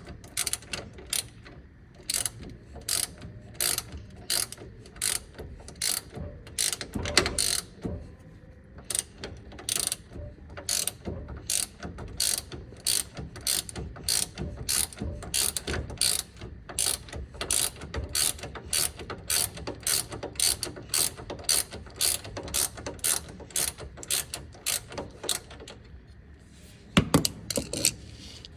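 Hand ratchet wrench clicking in steady strokes, about two a second, as bolts are run in on a brake caliper bracket; near the end it stops briefly, then comes a quick cluster of louder clicks.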